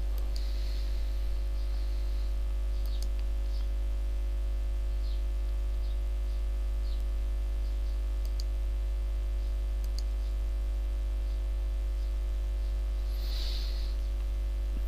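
Steady low electrical hum with a buzz of higher overtones, unchanging throughout, with a few faint scattered clicks.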